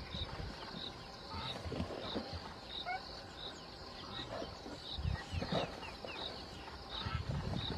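Outdoor wildlife ambience: a short high chirp repeating steadily about every two-thirds of a second, with a few quick higher chirps and scattered low thumps.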